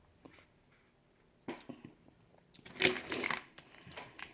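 Close-up eating sounds of crawfish: shells crunching and mouth smacking. The first second and a half is nearly quiet, then come short crunches, loudest about three seconds in.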